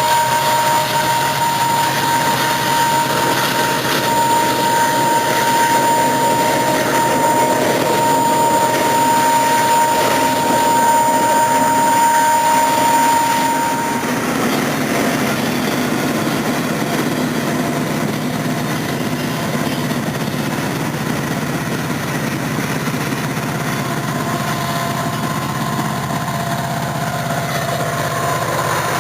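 A train's diesel locomotive running steadily. A steady high tone is heard over the engine noise and stops about halfway through.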